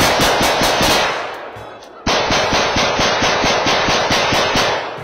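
Several rifles and pistols firing rapidly all at once, a dense rattling volley of overlapping shots. It dies away about a second in, starts again abruptly about two seconds in, and tails off near the end.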